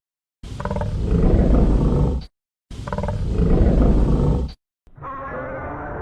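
Burning Godzilla roar sound effect: two loud roars of about two seconds each, with dead silence before and between them. A quieter, duller roar-like sound begins about five seconds in.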